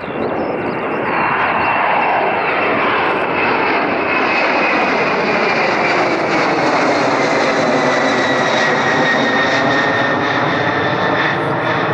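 Twin-engine Boeing 767-300ER jet climbing out after takeoff and passing overhead: a loud, steady engine roar that builds about a second in, with a high engine whine that slides slowly down in pitch as the aircraft goes over and away.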